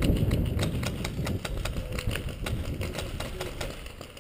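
Rapid series of paintball marker shots, about six sharp pops a second, growing fainter toward the end.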